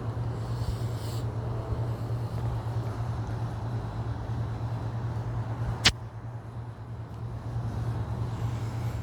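Steady low rumble of wind buffeting the microphone, with a single sharp click about six seconds in.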